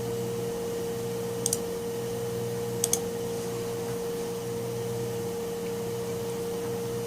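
Two quick double clicks, about a second and a half apart, most likely a computer mouse clicking, over a steady electrical hum with a constant mid-pitched tone.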